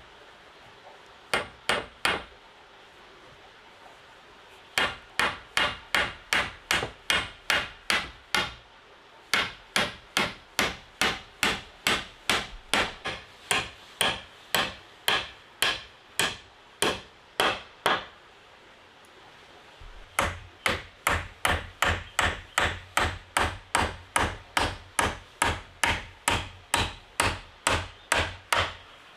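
Hammer blows, about two a second, in a few quick strikes and then three long runs with short pauses between them.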